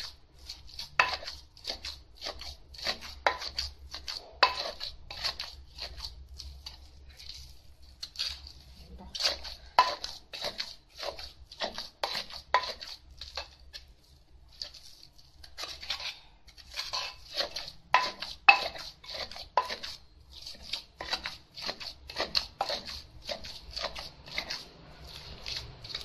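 Wooden pestle pounding thick chilli paste in a clay mortar, about two thuds a second, with a metal spoon in the bowl adding clinks. The pounding stops briefly about a quarter of the way in and again near halfway, when the paste is turned over with the spoon.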